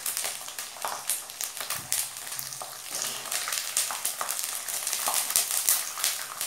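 Nylon sabudana (tapioca pearls) deep-frying in hot oil in an aluminium kadai: a steady sizzle with irregular crackles, as a wire-mesh skimmer lifts and turns the puffed pearls.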